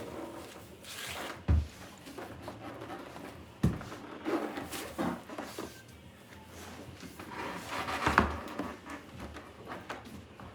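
Wooden Kallax cabinet being handled and flipped over: three sharp knocks, about 1.5, 4 and 8 seconds in, with scraping and rubbing between them.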